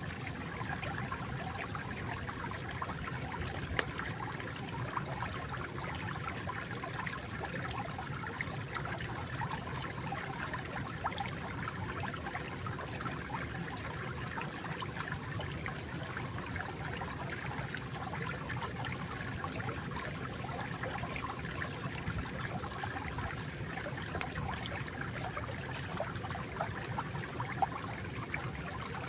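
Water flowing steadily in a stream, with a trickling, splashing texture and a few faint ticks here and there.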